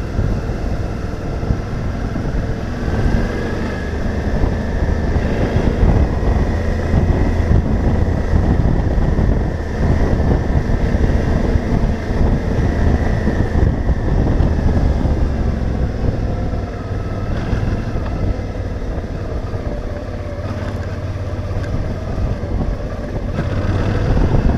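Motorcycle engine running steadily while riding over a sandy dirt track, with a dense low rumble throughout.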